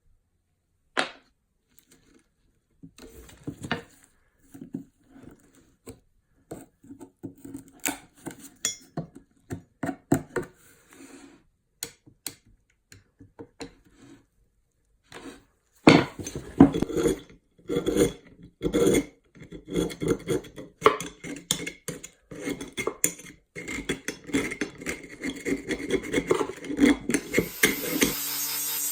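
Irregular metallic clinks, knocks and scraping from hand work on an old axe, sparse at first and busier and louder in the second half. Just before the end a small power tool starts and runs steadily.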